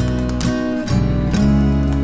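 Instrumental cinematic background music: held low bass notes and chords with sharp note attacks, moving to a new chord about a second in.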